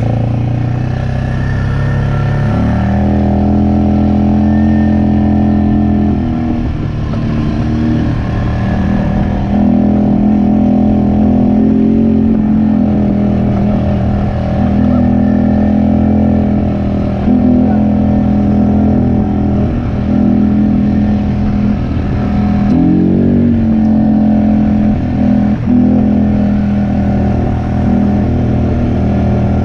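A small off-road vehicle's engine running steadily, its pitch stepping up and down as the throttle changes, with a quick dip and rise about three quarters of the way through.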